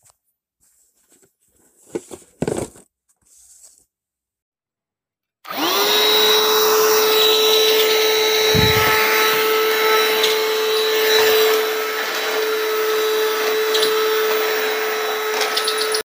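Cordless stick vacuum cleaner switched on about five seconds in, its motor spinning up quickly to a steady high whine over a rush of air and running on steadily. A few light handling knocks come before it starts.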